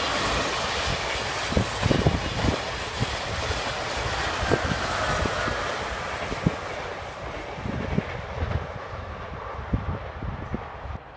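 TGV Duplex double-deck high-speed train rolling past, its wheels knocking irregularly over rail joints and points under a steady rush of running noise. A thin high whine fades away, and the whole sound dies down as the train moves off.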